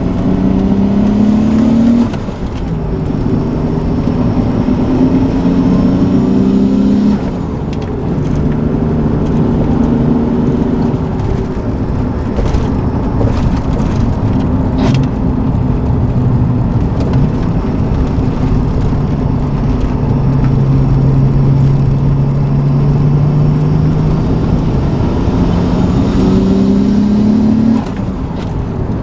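Nissan Stagea's turbocharged straight-six pulling under load, its pitch climbing through the gears with brief dips in level and pitch at each shift, about 2 and 7 seconds in and again near the end, with a long steadier cruise in between.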